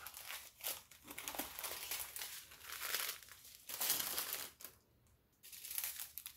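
Small plastic bags of diamond-painting drills crinkling as they are handled and shuffled, in a string of rustling bursts with a short pause about five seconds in.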